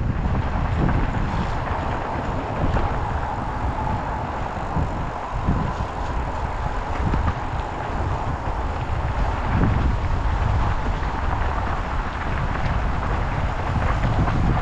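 Strong wind buffeting the microphone, a heavy gusting rumble, with a faint steady hum in the middle stretch.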